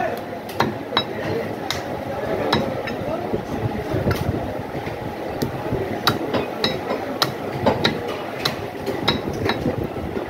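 Meat cleaver chopping goat meat and bone on a wooden chopping block: sharp chops at an uneven pace, about one to two a second, over steady background noise.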